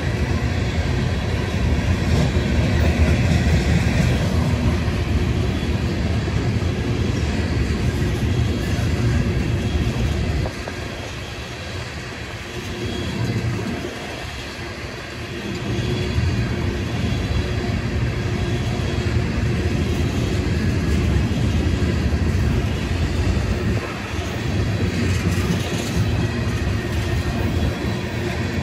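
Freight train of steel tank cars rolling past: a steady low rumble of wheels on rail. It drops quieter for several seconds around the middle, then rises again.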